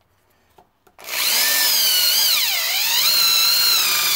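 Corded electric drill starting up about a second in and drilling a hole through sheet aluminium. Its motor whine dips in pitch as the bit bites, then rises again.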